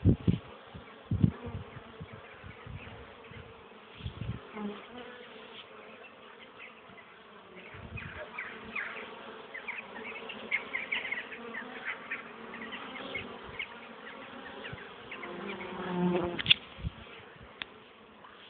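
Honeybees buzzing at a hive entrance, many wingbeats overlapping as they fly in and out, with a few low bumps and a sharp knock near the end.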